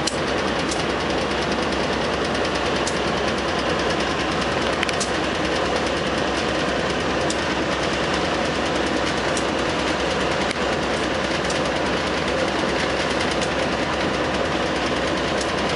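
Container wagons of a long freight train rolling past, making a steady, dense rattle of steel wheels on the rails with a few sharp ticks.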